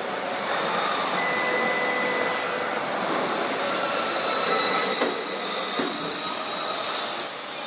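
TK3636 CNC router's axis motors driving the gantry to its home position: a steady mechanical whine over a hiss, with thin tones that change pitch partway through as the motion changes.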